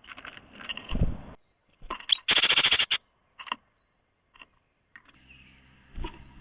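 Birds at a 3D-printed birdhouse feeder, heard through the built-in camera's small microphone: knocks and a loud burst of rapid fluttering about two seconds in, then a few light taps and a steady low hum.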